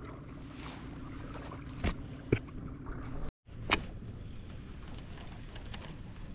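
Wind on the microphone and water moving around a kayak, a steady low rumble, with three sharp knocks and a brief drop to silence just past halfway.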